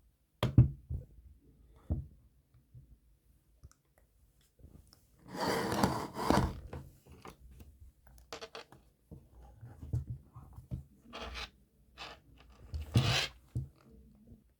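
Soft handling noises: scattered taps, clicks and rustles, with a longer burst of rustling about five to six seconds in.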